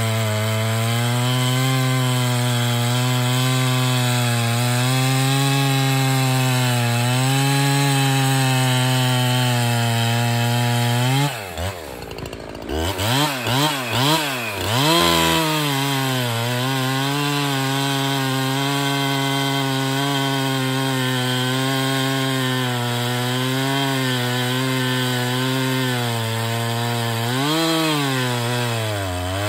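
Husqvarna 365 Special two-stroke chainsaw with an Oregon EXJ full-skip chain cutting through a log at full throttle, its pitch wavering as the chain loads up in the wood. About eleven seconds in the engine drops off and is revved in several short blips, then goes back to steady full-throttle cutting.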